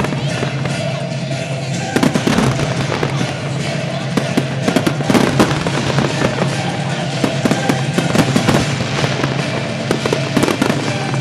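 Aerial firework shells bursting in quick succession with crackling, the bangs growing denser about two seconds in, with music playing underneath.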